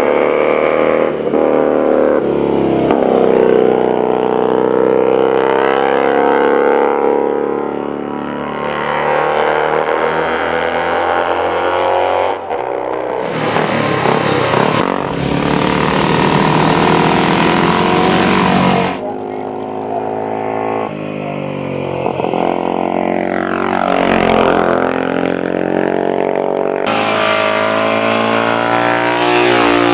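Racing motorcycle engines running at high revs, their pitch climbing and falling as the bikes accelerate, change gear and pass. The sound changes abruptly a few times, like splices in an old film soundtrack.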